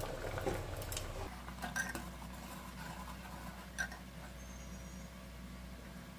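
Faint stirring: a steel ladle moving through thick curry gravy in an aluminium pressure cooker, with a few soft clinks against the pot, over a low steady hum.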